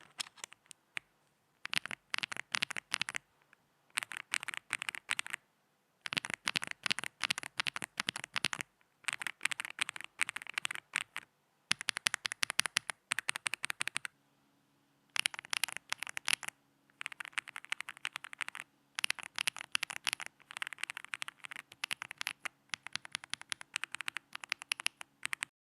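Mechanical keyboard typing in quick bursts of keystrokes with short pauses between them, each key a dense patter of clicks. About halfway through, a faint low steady hum comes in under the typing.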